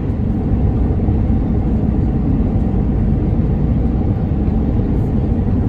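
Airbus A320 cabin noise on final approach: a steady low rumble of the engines and rushing air, heard from inside the cabin beside the wing.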